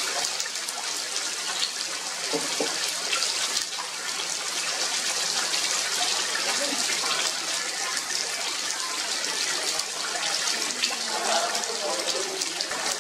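Heavy rain pouring steadily onto tree foliage: a dense, even hiss of falling water.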